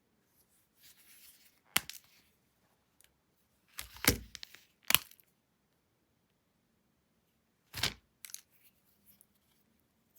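Chocolate wrapper being torn open and handled: a soft rustle, then a few separate sharp tearing and crackling sounds with short pauses between, the loudest about four to five seconds in.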